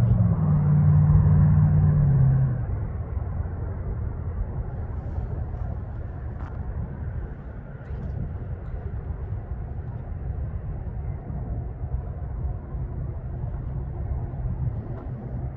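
Low rumble of a Union Pacific diesel freight train passing. A steady low engine drone is loud for the first two seconds or so, then drops away, leaving the rumble.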